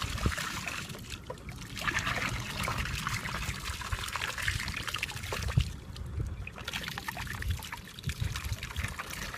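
Water trickling and splashing, with many small taps and low knocks throughout.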